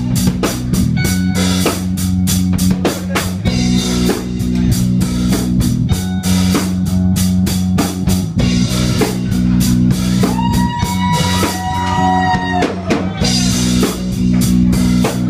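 Punk rock band playing live: electric guitar and bass over a fast, hard-hit drum kit. A held note bends up and down about two-thirds of the way through.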